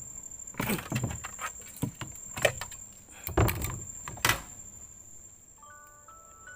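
A handful of sharp knocks and clattering sounds, irregularly spaced, over a steady thin high-pitched whine; a tinkling melody of stepped notes starts near the end.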